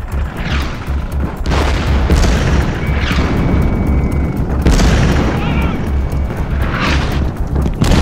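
Artillery shells coming in during a WWI battle scene: three times a falling whistle drops in pitch and ends in a loud explosion, over a pulsing low rumble. Film music plays underneath.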